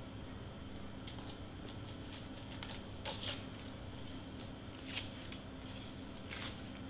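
Faint, scattered rustles and scrapes of cardstock pieces being handled and pressed down, about six short ones, over a low steady hum.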